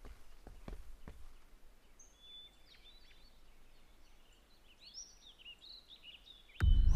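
Birds chirping faintly, after a few footsteps in the first second. Near the end a loud low sound starts suddenly.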